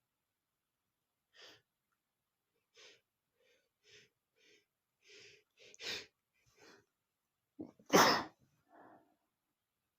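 A man's sneeze building up: several short, catching breaths in that grow louder, then one loud sneeze about eight seconds in, and a short breath after it. The sneeze is set off by dust from a book.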